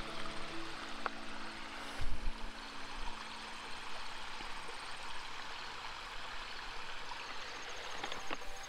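Water running steadily in a pond waterfall, with a brief low thump about two seconds in.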